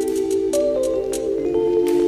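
Instrumental background music: held, layered notes that change pitch a few times, with light struck notes on top.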